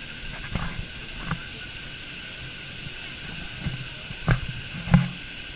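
The Norrköping-class fast attack craft's gas turbines running with a steady hissing whine while under way. Over it come several short dull thumps, the loudest near the end.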